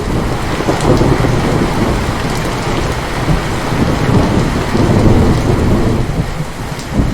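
Heavy rain falling steadily under a long roll of thunder; the low rumble holds through and swells again near the end.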